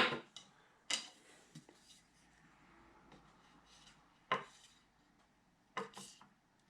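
A few light clicks and clatters, about a second in, at about four seconds and twice near the end: crossbow bolts being lifted off and set down on a small weighing scale.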